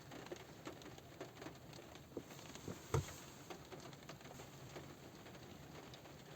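Light rain falling on a car roof: scattered drops tapping irregularly over a soft hiss, with one louder drop about three seconds in.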